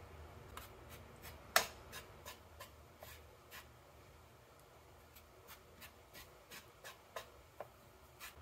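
Chopsticks scratching and tapping through flour in a wooden bowl as a pork chop is dredged. The sound is a run of soft, irregular clicks and scrapes, with one louder tap about a second and a half in.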